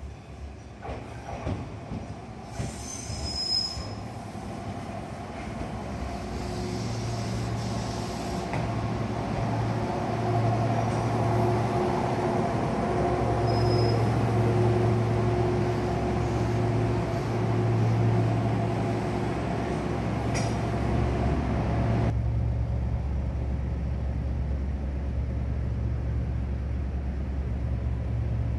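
Kumamoto Electric Railway 6000-series electric train pulling into a station and stopping, growing louder as it nears, with a steady electrical hum and a few brief high wheel squeals. About two-thirds of the way through, the sound changes to a duller, steady low hum heard inside the stopped train's cab.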